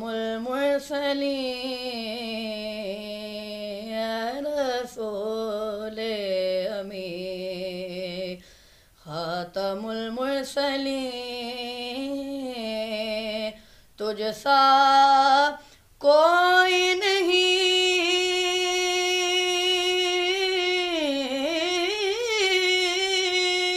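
A boy singing a naat unaccompanied in a high voice, with long drawn-out notes that bend and turn. He breaks off briefly about a third of the way in and twice more in the middle, then holds one long, higher note near the end.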